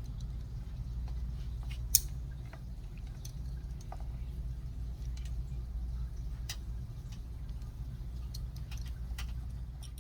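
Steady low hum of shop background noise with scattered small clicks and taps, one sharper click about two seconds in.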